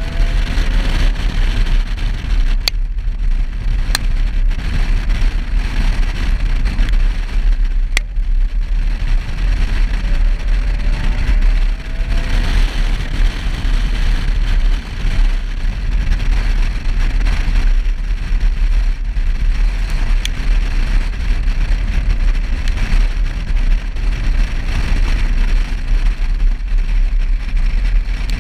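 Subaru WRX driving on a wet road, a steady rumble of road and wind noise picked up by a camera mounted outside the car. A few sharp ticks of raindrops hit the camera.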